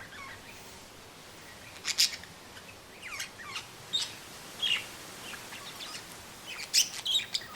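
Two budgerigars chirping in short, sharp calls, loudest about two seconds in and in a cluster near the end, over a steady hiss of wind in trees.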